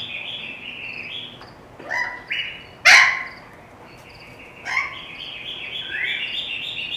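Parrots squawking in an aviary: loud, harsh calls about two seconds in, again at three seconds, and again near five seconds, over steady chirping and chattering from many birds, with a rising call near the end.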